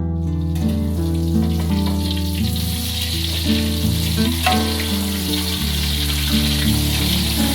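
Food sizzling in hot oil in a frying pan, starting about half a second in and then holding steady, over background music.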